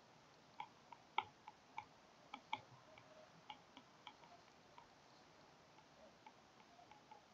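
Stylus tip tapping on a tablet's glass screen during handwriting: a run of light, irregular clicks, thickest in the first few seconds and thinning out later, over near silence.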